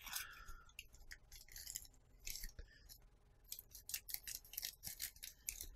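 Scissors snipping through a plastic postal mailer: a run of faint, short snips and crinkles of the packaging.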